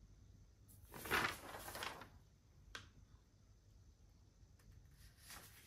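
Brief rustling of a small product packet being handled, about a second in and again just before the end, with a single small click between; otherwise quiet room tone.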